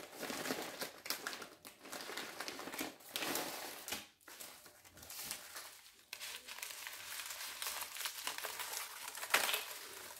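Crinkling and rustling of a bundle of sealed paper-and-plastic medical supply packets being handled, irregular, with a louder crinkle near the end.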